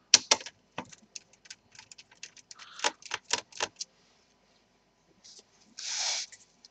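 Rapid small clicks and light metallic ticks of a precision screwdriver working screws out of a laptop's plastic bottom case. Near the end there is a short scraping rustle.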